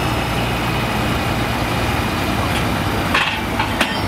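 International Harvester pro farm pulling tractor's diesel engine idling steadily at the end of its pull, with two sharp knocks near the end.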